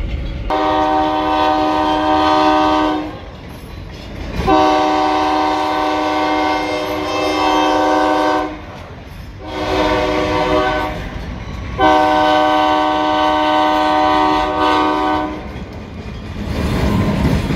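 Multi-chime air horn of an EMD SD40 freight locomotive (ELS 502) sounding the grade-crossing signal: two long blasts, a short one, then a long one, warning of its approach to a road crossing.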